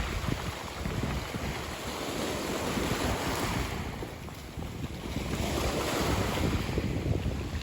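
Wind buffeting the microphone, with a low rumble, over a steady rush of sea noise.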